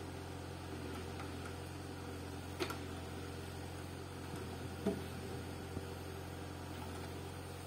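Tractor engine running steadily, driving the hydraulic crane of a forestry log trailer. Two sharp knocks come about two and a half and five seconds in.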